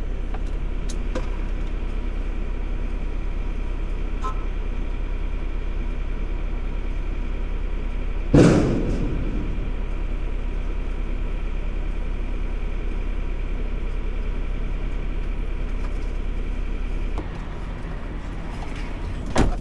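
A truck engine idling steadily, and about eight seconds in one very loud bang with a ringing tail, so loud it 'woke the world up'.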